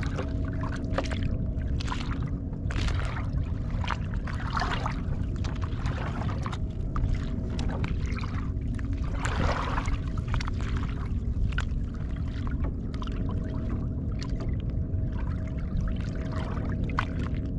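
Water splashing and lapping against the hull of a Hobie Mirage pedal kayak in short irregular splashes, over a steady low rumble and a faint steady hum.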